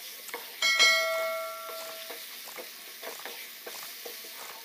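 A single bell-like ding about a second in, ringing out over about a second and a half: the notification-bell chime of a subscribe-button animation. Beneath it, a wooden spatula scrapes and taps as onion-tomato masala is stirred in a kadai.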